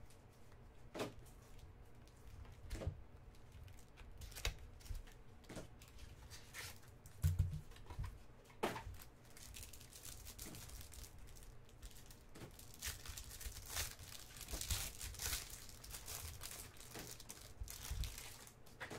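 Handling of a small cardboard trading-card box, with scattered taps and a low thump about seven seconds in. From about ten seconds in, a foil-wrapped pack of basketball cards is torn open and its wrapper crinkles as the cards are pulled out.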